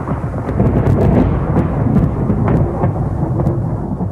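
Thunderstorm sound effect: a continuous low rumble of thunder with sharp crackles scattered through it.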